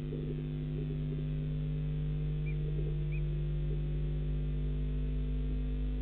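Steady electrical hum of several held tones, with two faint short high chirps about two and a half and three seconds in.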